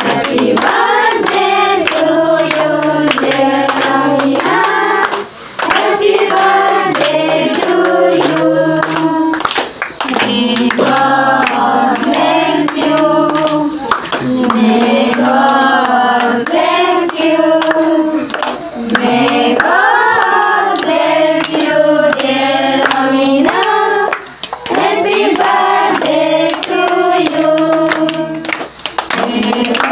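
A group of voices singing a song together to steady rhythmic hand clapping. The singing comes in phrases of a few seconds, each followed by a brief breath.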